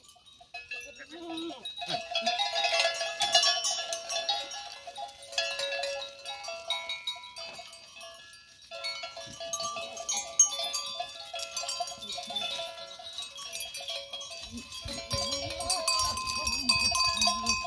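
A herd of goats bleating and calling while they feed, over long, steady ringing tones at several pitches.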